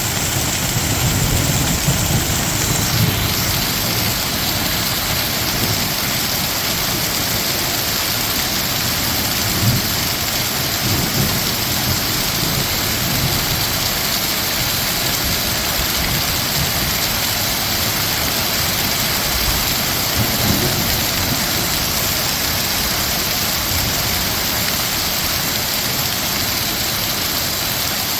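Heavy thunderstorm downpour, rain pelting steadily, with a few low rumbles rising briefly out of it near the start, around ten seconds in and around twenty seconds in.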